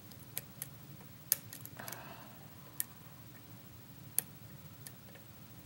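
Light, irregular metallic clicks of a lock pick and tension wrench working the pins of a pin-tumbler challenge lock (K1 Locks 'Camouflage'), about eight in all, the three sharpest about a second and a half apart, with a short soft rustle about two seconds in.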